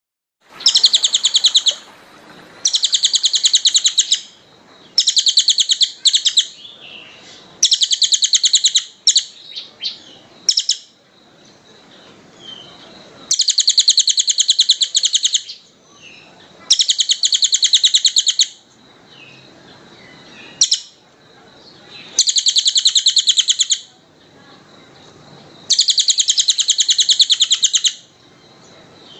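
A songbird singing fast, tightly packed trills in bursts of about one and a half to two and a half seconds, roughly every three seconds, with softer scattered chirps between them. This is the rapid, dense 'speed rapat' song used as masteran to train caged songbirds.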